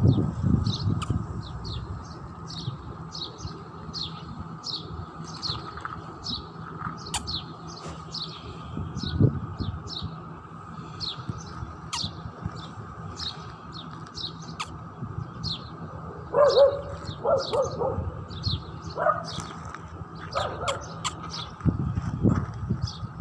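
Small birds chirping over and over: short, high, falling chirps at about two or three a second. A few short lower-pitched calls come about two-thirds of the way in.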